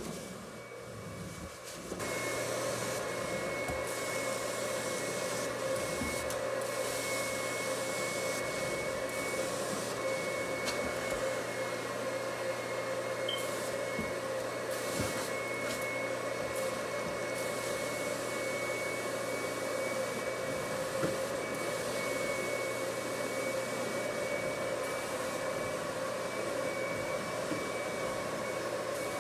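Carpet extraction machine's suction running steadily through the cleaning wand and hose, a constant whine over a low hum. It gets louder about two seconds in.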